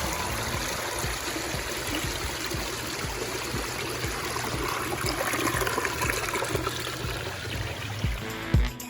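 Water running and trickling over the rocks and spillways of a newly started pondless waterfall and stream. Near the end, music with a thumping beat comes in.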